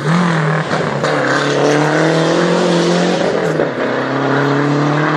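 Rally car engine accelerating hard on approach, its pitch climbing, dropping at a gear change about three and a half seconds in, then climbing again.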